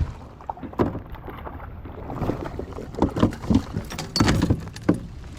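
Irregular knocks, bumps and clatter on a kayak's plastic hull as gear is handled.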